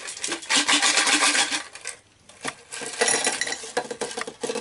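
Ice cubes clattering and clinking as they are dropped in for a drink, in two runs of many quick knocks with a short pause about two seconds in.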